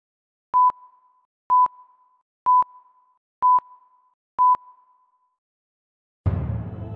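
Five short electronic beeps at one steady pitch, about one a second, each trailing off in a brief fading tail. Near the end, music with mallet percussion starts.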